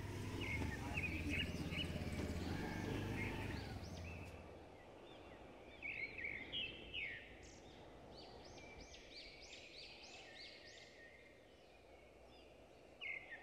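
A small motor scooter's engine runs at low revs as it pulls up and stops, then cuts out about four seconds in. Birds chirp in short repeated calls around it, most busily in the second half.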